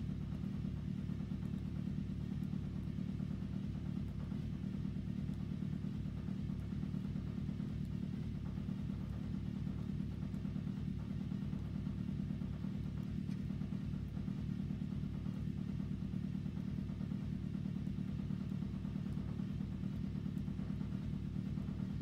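An engine running steadily, a low even rumble with a constant hum.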